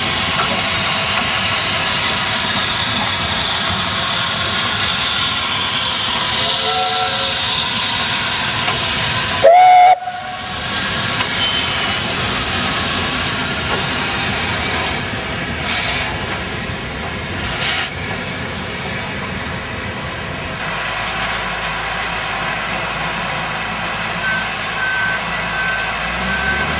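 A steam locomotive's steady hiss of escaping steam as it works slowly past. About ten seconds in there is a short, very loud blast, the loudest moment. From about two-thirds of the way through, a low engine rumble joins in, with a short beep repeated near the end.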